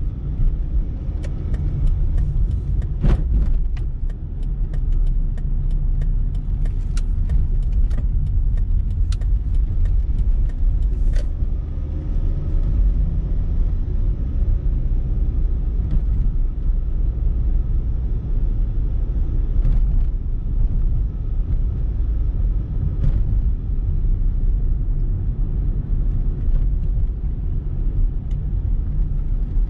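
Car driving, heard from inside the cabin: a steady low rumble of engine and tyres on the road. A run of small clicks and rattles comes over the first ten seconds or so, with a few more later.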